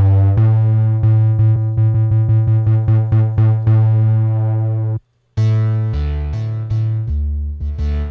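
Karanyi Sounds Polyscape Analogue software synthesizer playing a preset: a deep, bass-heavy sustained note pulsing in quick rhythmic repeats. It cuts out briefly about five seconds in, then comes back as a choppier pattern of short repeated notes.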